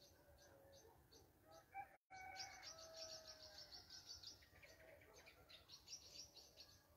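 Faint birdsong: small birds chirping in quick repeated runs, with a few longer, lower calls among them. The sound cuts out for an instant about two seconds in.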